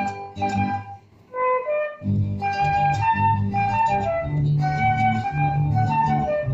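Instrumental Colombian pasillo in a lively three-beat feel: plucked strings play a bass line and chords under a flute-like melody. About a second in the accompaniment drops out briefly while a short rising solo phrase plays, then the full ensemble comes back in.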